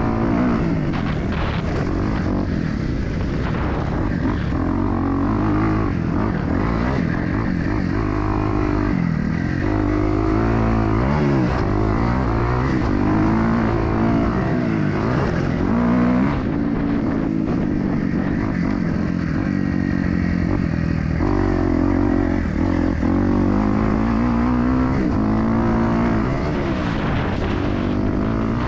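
Motocross dirt bike engine revving hard, its pitch rising and falling again and again with throttle and gear changes.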